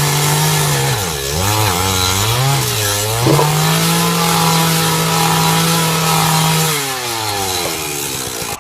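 A small engine running at high revs, its pitch dipping and recovering several times in the first few seconds, then holding steady, before dropping to a lower speed about seven seconds in.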